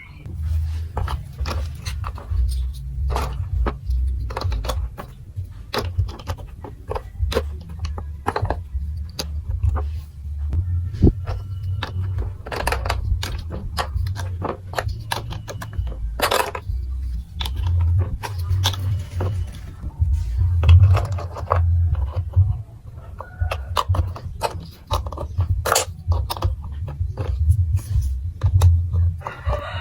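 Plastic marble run building-block pieces clicking and clattering as they are handled and fitted together, many sharp irregular clicks over a low rumble.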